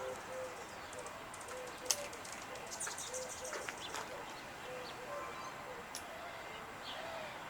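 A dove cooing: a run of short, low coos repeating every half second or so, with small birds chirping faintly over it.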